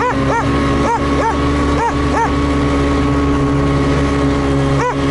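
Buran snowmobile's two-stroke engine running steadily while a laika barks about seven short times, mostly in quick pairs, with a pause in the middle.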